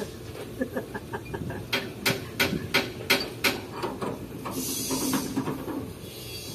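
Steel hand tools working on a truck's leaf-spring and axle mounting: a quick run of light metal ticks, then about seven sharp metallic clanks about three a second, with a brief hiss about two thirds of the way through.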